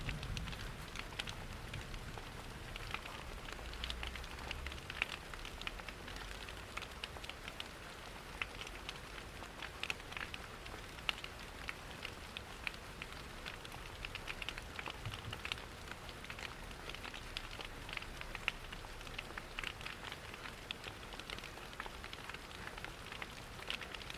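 Steady rain with a wood fire crackling, many small sharp pops and ticks scattered through an even hiss.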